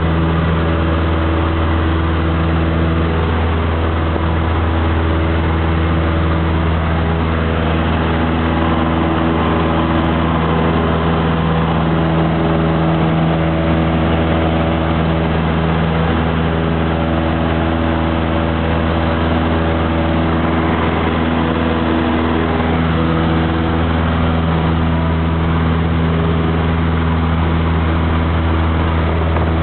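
Cessna 152's Lycoming O-235 four-cylinder engine and propeller running steadily at climb power, heard inside the cabin: a deep, even drone with steady overtones.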